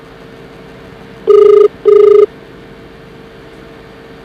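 Telephone ring-back tone heard down the phone line: two short beeps a fraction of a second apart about a second in, over a faint steady hum. The pair-of-beeps pattern with a long pause is the Indian ring-back cadence, the sign that the called phone is ringing at the far end.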